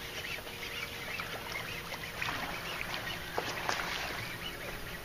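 Birds calling, a scattering of short chirps and squawks over steady outdoor background noise.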